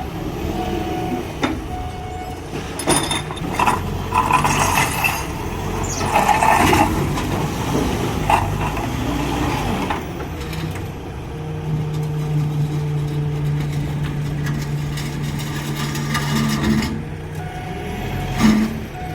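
A truck engine running, with scattered knocks and clanks. Short repeated beeps come near the start and again near the end, and a steady hum holds for several seconds in the second half.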